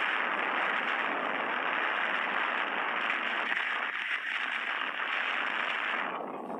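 Steady rushing wind and road noise picked up from a moving vehicle, with no engine note standing out. It thins out near the end.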